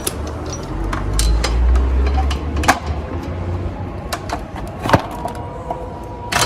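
Scattered sharp knocks and clanks of tools on metal during a rear shock absorber replacement, the loudest about five seconds in. Under them runs a low rumble.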